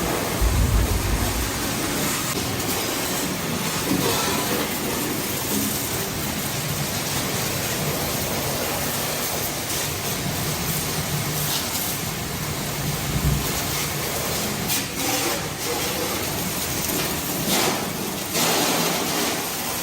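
Water spraying steadily onto a tractor as it is washed: a constant rushing hiss with a few low thumps near the start.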